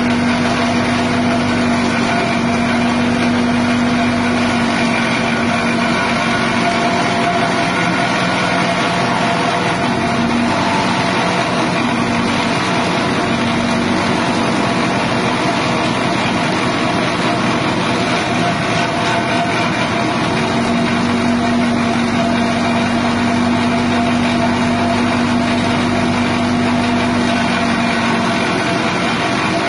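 Small 6.5 HP single-cylinder petrol engine driving an elephant-grass chopper, running steadily at speed. Its note wavers a little now and then.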